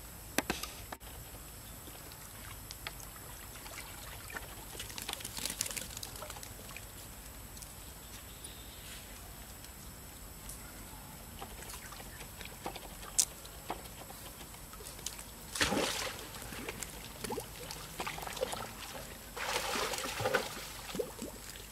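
Water sloshing and trickling as young monkeys wade and swim in a shallow pool, with small drips and clicks and a few louder splashes: one about a quarter of the way in, and more about three quarters of the way through and near the end.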